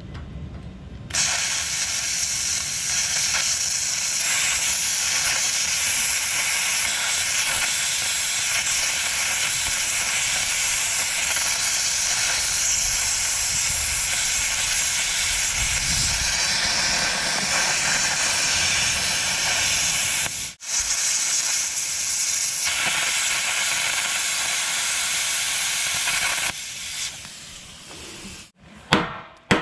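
Handheld plasma cutter burning through the nut of a bulldozer blade's cutting-edge bolt: a loud, steady hiss that starts about a second in, breaks for an instant about two-thirds of the way through, and stops a few seconds before the end. A few sharp knocks follow near the end.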